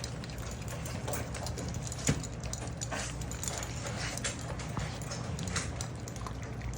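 A litter of six-week-old puppies eating dog food: a steady patter of small clicks and crunches from their mouths and the dish, with one louder click about two seconds in, over a steady low hum.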